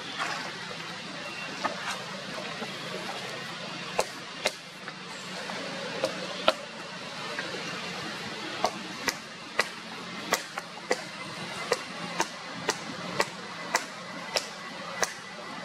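A young long-tailed macaque eating fruit up close: sharp clicks of chewing and mouth smacking, scattered at first and then coming about two a second through the second half, over a steady outdoor background hiss.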